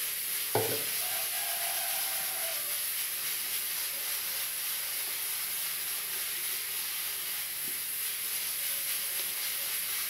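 A metal spoon scraping and scooping thick, soft soap paste out of a plastic blender jar and into small plastic tubs, over a steady hiss, with one short sharp knock about half a second in.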